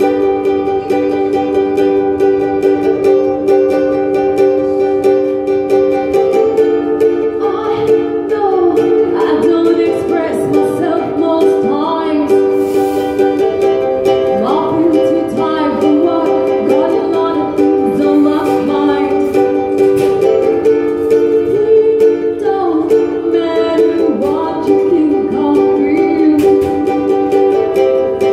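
Live acoustic song: a woman singing to a strummed ukulele. The ukulele plays alone for the first several seconds before her voice comes in over it.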